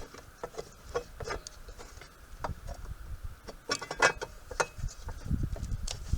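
Scattered clicks and light knocks of hand work on an RV generator's parts, with a burst of sharper clicks about four seconds in and low handling rumble near the end.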